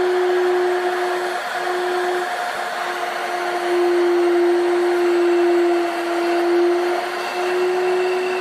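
Electric motor and diamond disc of a tungsten electrode grinder running with a steady whine over a hiss, grinding a tungsten electrode tip. The tone sags slightly in pitch and level twice.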